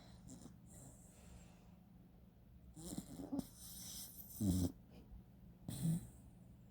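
A sleeping dachshund snoring, a snore about every one and a half seconds, the loudest about four and a half seconds in.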